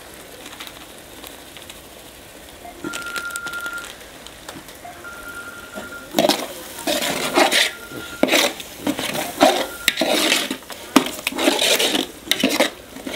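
Metal ladle scraping and clanking against a large metal pot as thick biryani masala paste is stirred on the stove. The stirring starts about six seconds in, in quick irregular strokes, after a quieter stretch.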